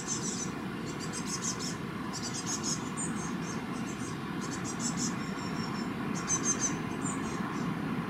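Steady low hum of distant city traffic, with short bursts of rapid, high-pitched chirping that repeat every second or so.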